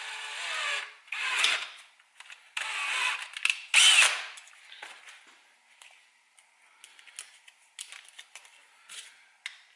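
Power drill running in four short bursts, the holes being opened up with a larger bit, followed by scattered light clicks and knocks.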